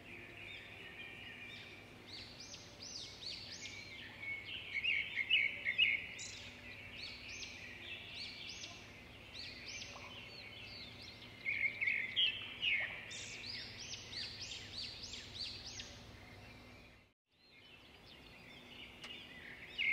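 Small birds chirping and singing together: dense clusters of quick rising and falling chirps, with a brief dropout to silence about three seconds before the end.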